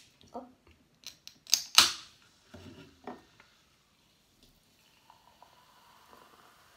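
Aluminium cola can being opened: a few clicks at the pull tab, then a sharp crack with a short fizzing hiss about two seconds in. Near the end comes a faint, steady fizz as the carbonated cola is poured into a glass.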